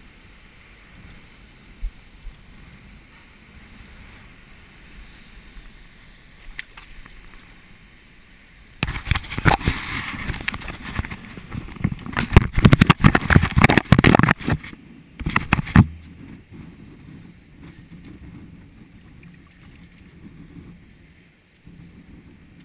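Low steady wash of surf and wind, broken about nine seconds in by some seven seconds of loud, irregular scraping and knocking right on the microphone as the camera is handled and repositioned.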